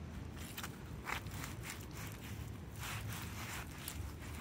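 Footsteps of slide sandals worn over socks on wet, puddled pavement: a handful of uneven, short, wet steps over a constant low rumble.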